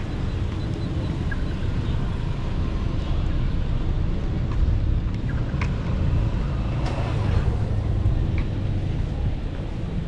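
Road traffic noise: a steady low drone from cars on the road, with a few faint clicks.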